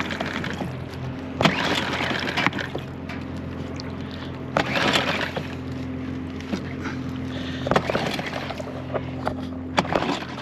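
Small outboard kicker motor being pull-started over and over without catching: a burst of noise about every three seconds over a steady low hum. It stalled because the fuel tank vent was left closed.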